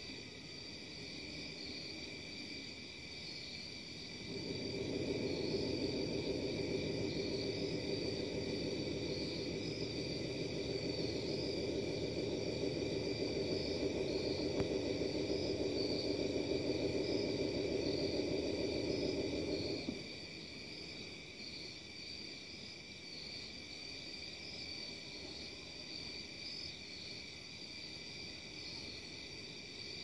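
A loud, steady low drone of unknown origin, heard at night over a house, starts about four seconds in and cuts off suddenly about two-thirds of the way through. Crickets chirp steadily throughout.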